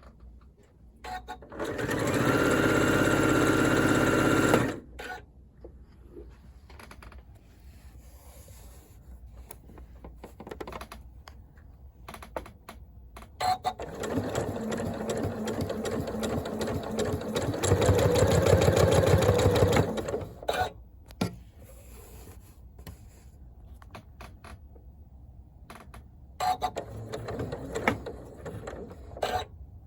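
Janome computerized sewing machine with an AcuFeed walking foot stitching in two runs: a short one about two seconds in and a longer one from about halfway that speeds up briefly near its end. Between the runs and near the end come short clicks and brief whirs as the machine stops and restarts.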